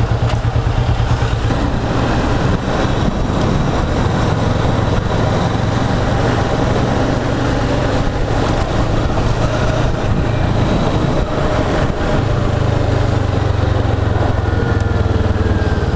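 Kawasaki Vulcan S 650's parallel-twin engine running as the motorcycle is ridden, its low note weaker in the middle and fuller again over the last few seconds.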